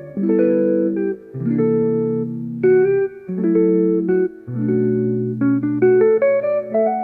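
Instrumental music of plucked string chords, a new chord about every second.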